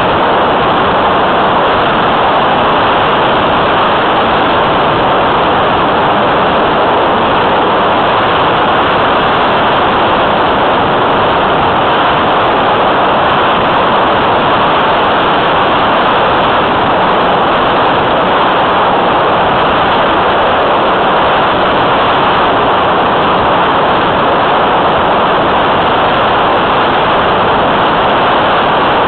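Steady, loud rush of wind buffeting the onboard camera's microphone on a flying radio-controlled model plane, an even hiss with no clear motor tone standing out.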